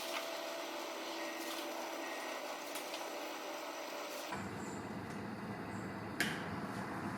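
Utility knife drawn through a thick rubber horse stall mat along a scored line, a faint steady dragging cut. One short knock about six seconds in.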